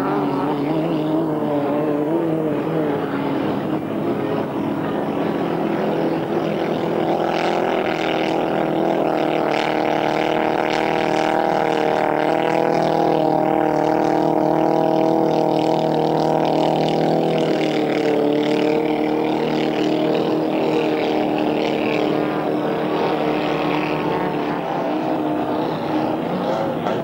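Historic inboard racing hydroplane engine running hard. Its pitch wavers in the first few seconds, then it holds a steady high note, loudest around the middle, before settling to a slightly lower steady note for the last third.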